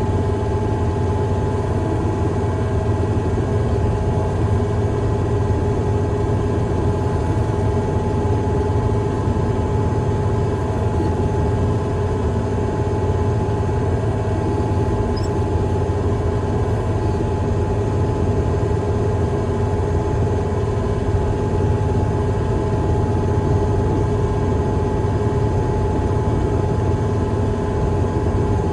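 Heavy equipment's diesel engine running steadily at a constant speed.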